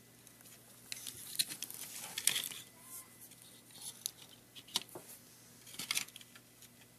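Plastic calculator case and circuit board being handled and pried at during disassembly: scattered light clicks and scratchy scrapes, with a few sharper clicks spread through.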